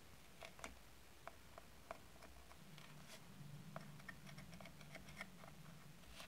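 Faint, scattered light clicks and taps of a small knife and fingertips against a miniature metal cake pan, as the overhanging dough is pressed down and trimmed from its rim.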